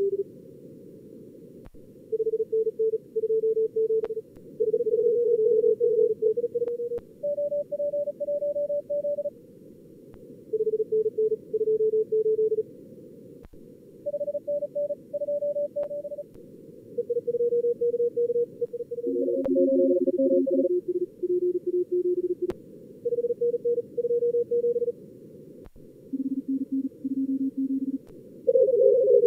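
Simulated contest Morse code from SkookumLogger's practice mode: fast CW tones at several pitches between about 250 and 550 Hz, callers at times overlapping two or three at once, over steady narrow-band receiver hiss.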